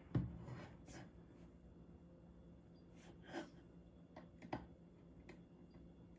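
Faint, scattered small clicks and taps of hand work on a guitar pedal's parts, six or so spread over a few seconds, likely a small screwdriver working the knob set screws.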